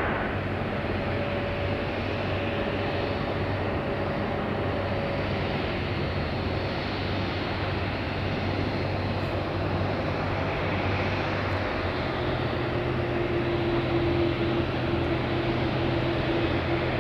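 Boeing 787-8 airliner's jet engines running steadily: an even rushing hum with faint steady tones, one of which shifts to a lower pitch about twelve seconds in.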